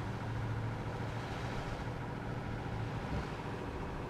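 An engine running steadily: a constant low hum that holds one pitch throughout.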